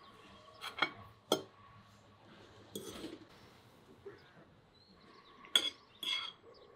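Metal spoon and fork clinking and scraping against earthenware plates: two sharp clinks about a second in, a short scrape near the middle, and two more clinks near the end.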